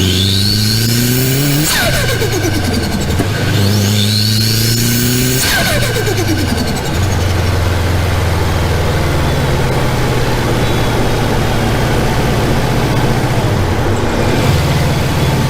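Turbocharged car engine revved twice in quick blips, each with a rising turbo whistle that falls away with a flutter as the throttle closes. After the second blip it settles into a steady idle.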